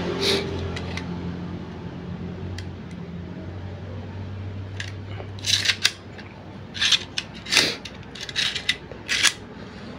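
Stainless-steel manual staple gun being handled, its metal parts giving a series of short clicks and rattles that come in clusters from about five seconds in.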